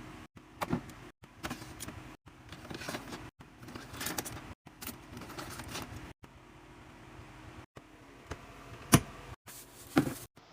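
A mini fridge being restocked with drinks: scattered clicks, knocks and rustles of bottles and plastic containers being handled and set in place. The sound is broken into short pieces by abrupt cuts, with one sharp click about nine seconds in.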